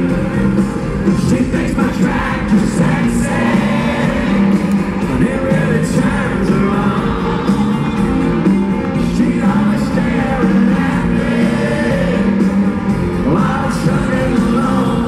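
Live country music from a full band over a stadium sound system, with a male lead singer, recorded from within the crowd.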